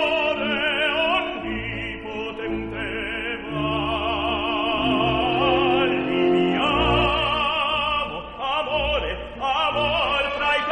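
Background music: an operatic solo voice singing with wide vibrato over an orchestral accompaniment.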